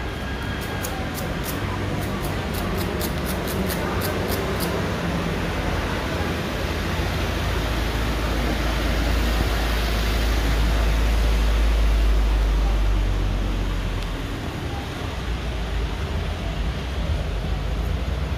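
Road traffic noise, with a deep rumble that swells to its loudest about ten to twelve seconds in and fades away, like a heavy vehicle going past. Faint high ticks, a few a second, sound during the first five seconds.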